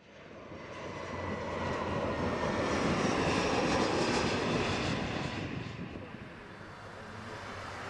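Jet airliner engine noise that fades in, swells to a loud roar about three to four seconds in, and falls away after about five seconds, like a jet passing overhead.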